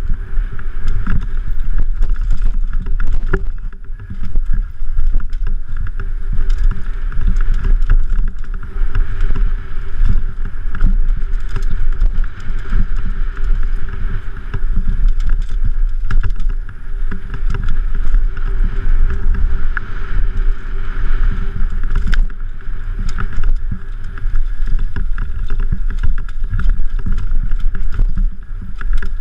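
Mountain bike descending a rough dirt trail, heard from a helmet-mounted camera: a steady wind rumble on the microphone, with constant rattling and knocks from the bike and tyres over bumps.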